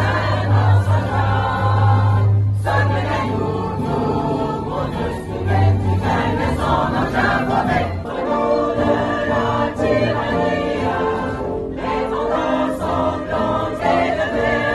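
A choir of mixed voices singing a national anthem, with held notes changing every second or so.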